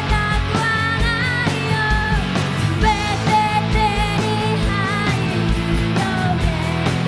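Live rock band playing: a woman sings a melody over electric guitars, bass guitar and a drum kit, with a steady kick drum beat.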